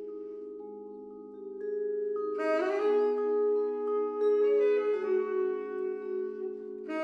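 Vibraphone and saxophone duet playing a slow ballad: held vibraphone chords ring on quietly, then a louder, fuller passage comes in about two and a half seconds in.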